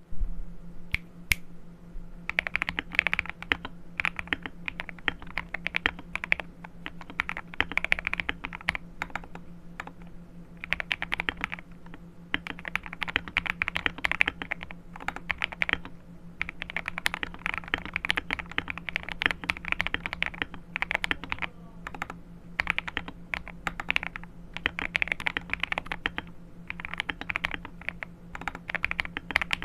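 Clacky typing on an MK870 mechanical keyboard with lubed KTT Strawberry linear switches, Akko keycaps and foam dampening, in bursts of fast keystrokes with short pauses between. A steady low hum runs underneath.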